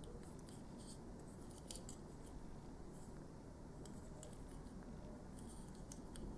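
Faint, scattered clicks and light rubbing of a FOX40 Pearl plastic whistle being turned over in the fingers, over a low steady room hum; the whistle is not blown.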